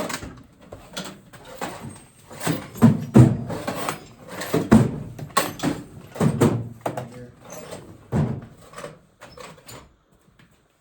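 Metal tools clattering and knocking irregularly as they are handled, with a handful of louder clanks among them.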